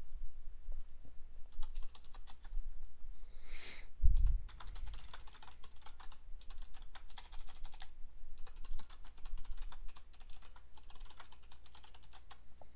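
Computer keyboard typing in several bursts of rapid keystrokes, with a dull low thump about four seconds in.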